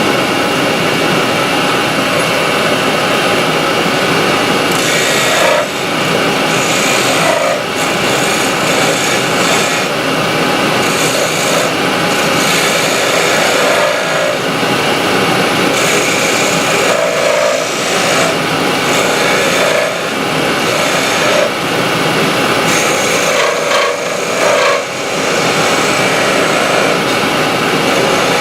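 Union Jubilee wood lathe running steadily while a small 8 mm skew chisel cuts a little wooden spindle, the cutting noise coming and going in passes every few seconds.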